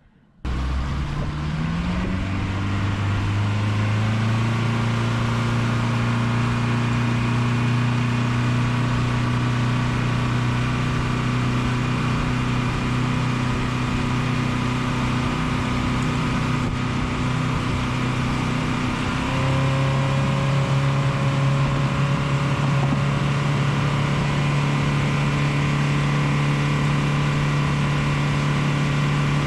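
A boat's motor running: it comes up in pitch over the first couple of seconds, holds a steady drone, then steps up to a higher, steady pitch about two-thirds of the way through as the throttle is opened further.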